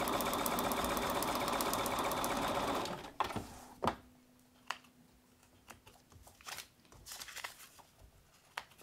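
Bernina electric sewing machine stitching a seam through fabric and foundation paper at a steady fast speed for about three seconds, then stopping abruptly. After that come a few sharp clicks and light rustling as the pieced fabric and paper are handled.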